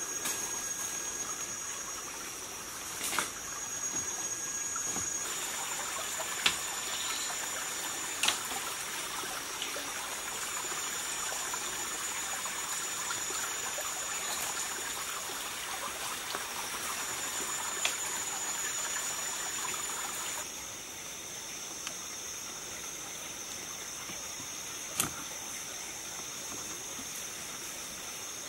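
Forest ambience: insects droning at one steady high pitch over an even hiss, with a handful of sharp knocks from bamboo poles being handled.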